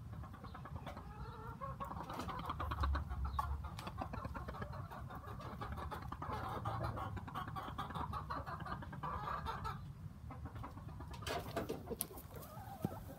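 Chickens clucking in a long, rapid run of calls; near the end, crackling and rustling of dry twigs and leaves close by.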